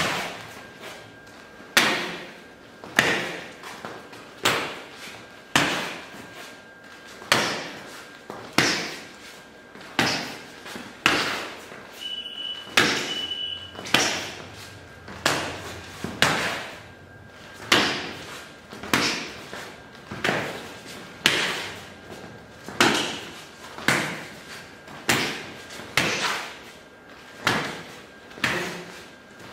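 Sharp slaps of forearm blocks and simultaneous counter-strikes hitting arms and heads, roughly one a second in a steady rhythm, during a Krav Maga punch-block-and-counter drill.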